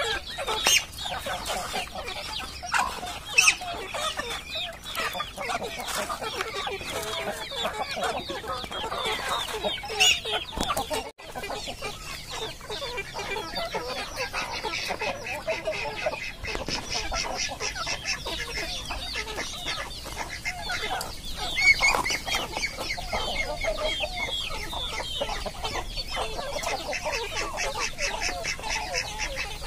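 Flock of free-range village chickens clucking and calling continuously while feeding, with a few sharp taps and a brief gap about eleven seconds in.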